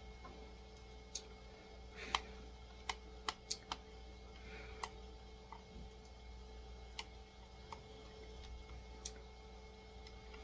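Scattered light clicks and taps of a screwdriver working small screws out of a die-cast toy car's display platform, with a quick run of clicks between about two and four seconds in.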